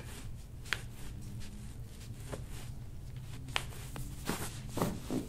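Soft rustling and a few light clicks from hands handling a sock-covered foot and ankle during a chiropractic stretch, over a low steady hum.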